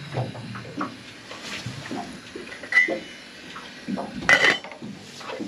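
Cooking utensils and gear knocking and clinking as they are handled, with a short metallic ring about three seconds in and a louder clatter a little after four seconds.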